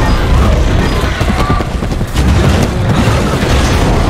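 Loud cinematic action sound effects: deep booms and rumbling with scattered hits, mixed with music, dense and bass-heavy throughout.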